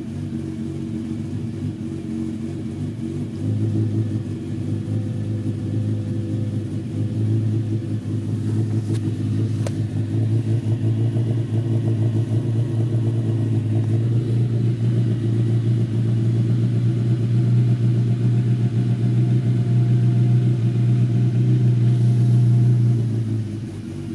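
Honda Civic Type R EP3's 2.0-litre K20 four-cylinder engine running, its note swelling and easing unevenly before dropping near the end. The owner reports hunting revs, a clunking noise and a VTEC system malfunction (code P1259) that the dealer has not traced.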